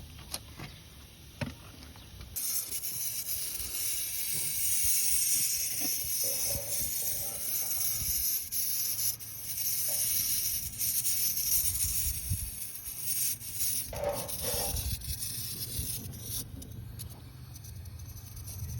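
A steady, loud jet of gas hissing on an air-conditioning repair, starting a couple of seconds in and cutting off near the end, over a low rumble with a few light knocks.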